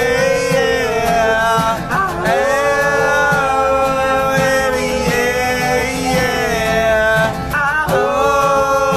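A man singing in long held notes while strumming an acoustic guitar, with a few slides in pitch between notes.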